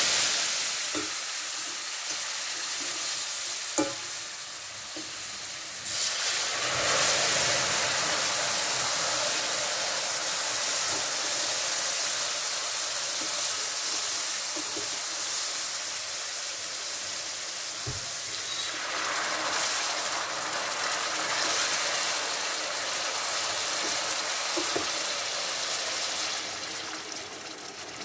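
Hot sugar syrup hitting semolina toasted in butter in a steel pot, hissing and sizzling loudly with steam. The hiss swells again about six seconds in and again near twenty seconds, with a few light knocks now and then.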